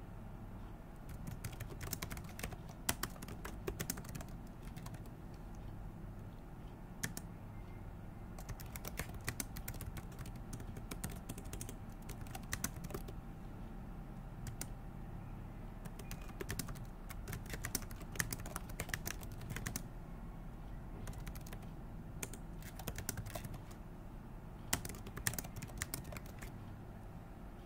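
Typing on a computer keyboard: runs of quick keystrokes in bursts with short pauses between them, over a faint low steady hum.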